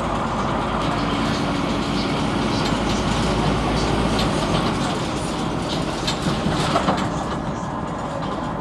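Cabin noise inside a Scania NewOmnicity city bus under way: steady engine and road noise with rattling of the body and fittings. The low engine drone drops away about halfway through, and a cluster of rattles comes a little before the end.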